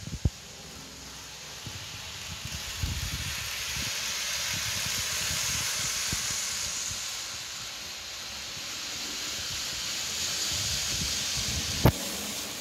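Model trains running on their track: a steady hiss of motors and wheels that swells twice as trains pass close, with a sharp click near the end.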